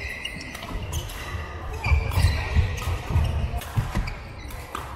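Badminton rally on a wooden court: players' feet thudding and shoes squeaking on the floor, with sharp racket strikes on the shuttlecock.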